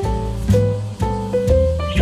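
Background music: a gentle instrumental track with melody notes changing every half second or so over a steady bass line.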